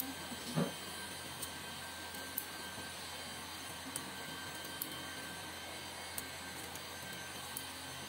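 Steady fan-like machine hum and hiss, with a soft knock about half a second in and a few faint, sharp clicks spaced a second or so apart.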